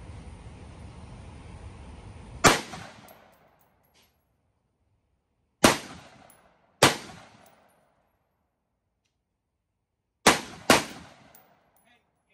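Five single shots from a Ruger SFAR semi-automatic rifle, each a sharp crack that trails off in a short echo. They come at uneven spacing, the last two less than half a second apart.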